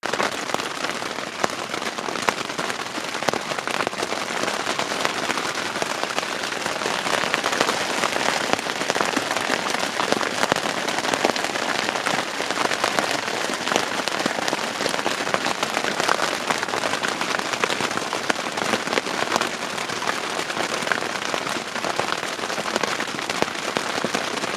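Campfire burning with a steady dense crackle of many small pops and snaps.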